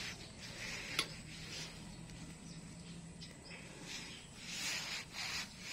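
Irregular scuffling and rustling from a cat swiping and pouncing at a feather wand toy, with a sharp click about a second in and a busier patch of rustling near the end.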